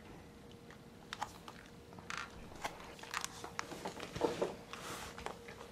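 Soft scattered rustles and clicks, with a brief soft vocal sound about four seconds in, over a faint steady hum.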